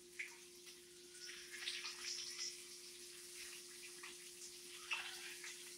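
Bacon and sausage sizzling in a frying pan: a faint, irregular crackling hiss, with a steady low hum underneath.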